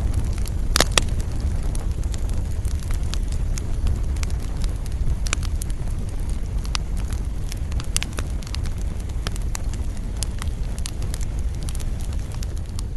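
Wood fire burning in a fireplace: a steady low rumble of flames with frequent sharp crackles and pops, including two loud pops about a second in and another near the middle.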